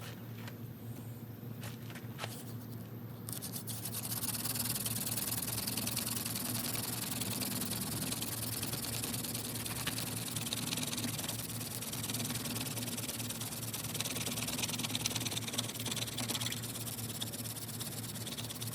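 Mullein hand-drill spindle spun back and forth in a pine hearth board: a dry, steady friction rubbing hiss that starts about three seconds in, after a few light clicks, and keeps going.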